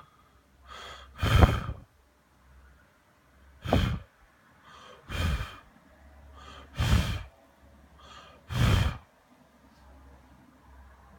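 A person breathing hard: five strong out-breaths, about one every one and a half seconds, most of them after a softer in-breath.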